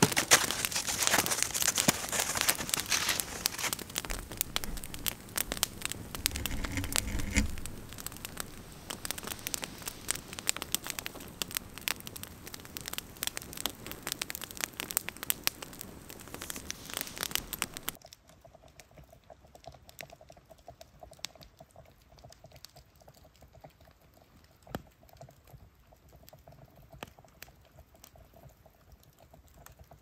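Softwood campfire crackling, a dense run of sharp snaps and pops, with a few low thumps about seven seconds in. About two-thirds of the way through it drops suddenly to a much quieter fire with only scattered pops over a faint steady whine.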